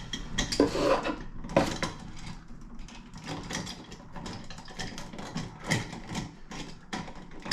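Hand tool and wire scraping and clicking against a rocker light switch's side screw terminals while a stubborn wire is worked off, a run of small irregular clicks and scrapes.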